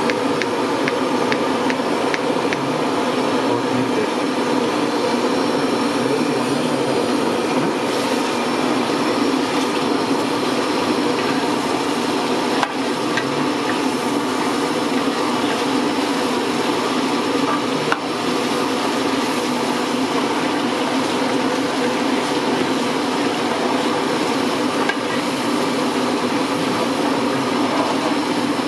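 Large aluminium cooking pot of meat and stock at a hard rolling boil: a steady rushing, bubbling noise, with an occasional faint knock.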